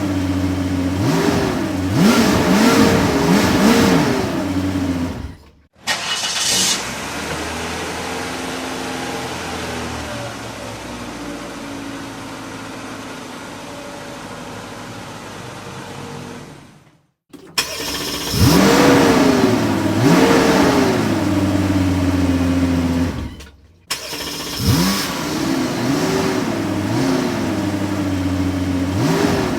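Car engines in separate clips: in three of them an engine is revved in repeated short blips, its pitch climbing and dropping. Between them, after a brief cut, a quieter engine runs steadily for about ten seconds.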